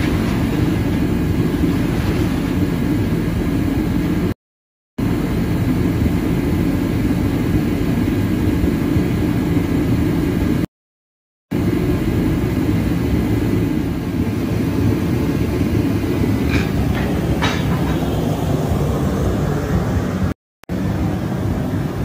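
Straight-piped Dodge Charger Daytona 392's 6.4-litre HEMI V8 idling with a loud, steady, deep exhaust rumble as the car creeps forward at low speed. The sound drops out to silence briefly three times.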